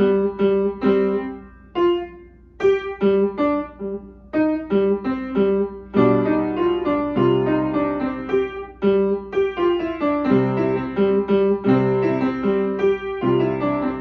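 A child playing an upright piano solo, a steady run of notes with short breaks in the playing about two seconds and about four seconds in.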